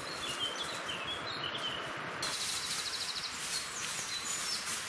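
Woodland ambience: small birds chirping over a steady background hiss. About two seconds in the background changes abruptly, and a rapid high trill of birdsong comes in.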